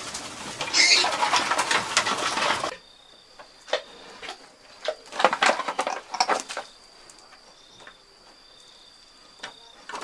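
Piglets being caught and handled: squealing and scuffling in two loud stretches, one about a second in that cuts off abruptly and a shorter one around five seconds in.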